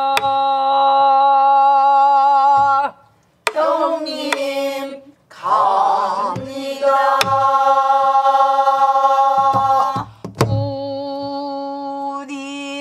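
Pansori singing in long held notes at a steady pitch, phrase after phrase with short breaks, punctuated by several sharp strokes on a buk barrel drum.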